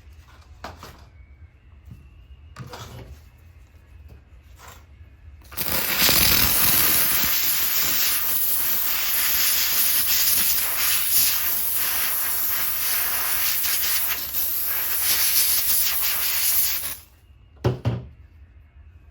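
Steam cleaner spraying steam onto a grimy cord: a loud steady hiss that starts about five seconds in and cuts off sharply some eleven seconds later. A few faint clicks come before it and a short knock just after.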